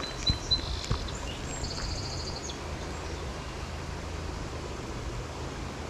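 Steady rush of a small river's flowing water, with a few faint knocks in the first second and a brief high chirping during the first couple of seconds.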